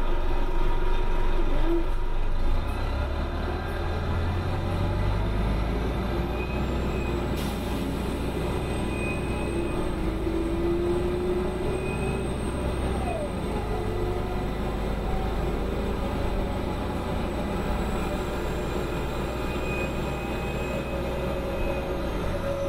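Diesel engine and drivetrain of a 1995 New Flyer D40LF transit bus under way, heard on board: a steady low drone, heavier through the first half and easing about halfway through.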